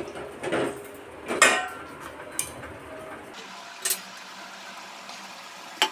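Steel ladle knocking and scraping against a stainless steel pot during stirring: about five separate clinks, the loudest one ringing briefly about one and a half seconds in.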